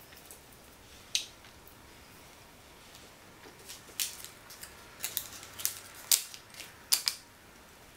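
Crunchy chewing of a chocolate bar with hard caramel pieces and malted cereal balls in it: a string of sharp, crisp crunches, one about a second in, then coming more often from about four seconds on.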